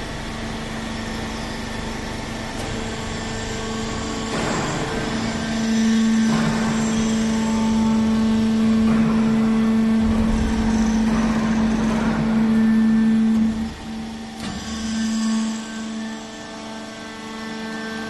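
Hydraulic hemp baler running: its motor and hydraulic pump give a steady hum that grows louder a few seconds in while the press compacts hemp stalks, then drops off near the end. A few short rushing noises sound over the hum.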